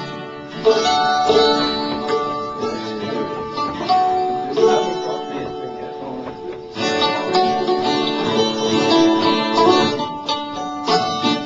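Live folk-punk band playing the instrumental introduction of a song on acoustic instruments, growing fuller and louder about seven seconds in.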